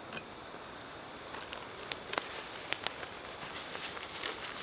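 Water poured in a steady trickle into a plastic bag of stuffing mix, with a few sharp clicks of handling about two to three seconds in.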